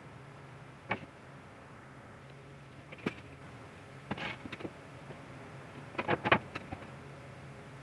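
Handling noise of a square MDF board on a workbench: a tap about a second in, another about three seconds in, a short scrape a little after four seconds, and a quick cluster of knocks just after six seconds as the board is laid down. A faint steady low hum runs underneath.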